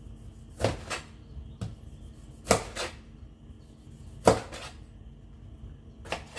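Kitchen knife slicing a tomato on a plastic cutting board: about eight separate knocks of the blade meeting the board, unevenly spaced and sometimes in quick pairs.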